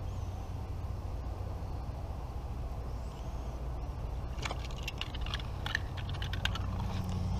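The plastic reel of a toy Rocket Fishing Rod clicking and rattling in a quick, irregular run about halfway through, as a small fish is reeled up out of the water. A steady low rumble sits underneath throughout.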